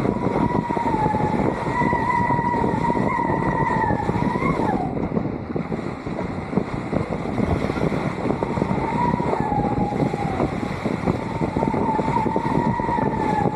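Wind rushing over the microphone of a kite-mounted action camera above a kiteboard ripping across choppy water. A high, slightly wavering whistle sounds over it for the first four seconds or so, then again twice in the second half.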